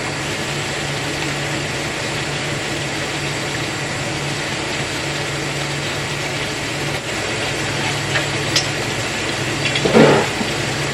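A steady motor running with a low hum under an even hiss, as from a household motor-driven appliance. A brief louder sound comes about ten seconds in.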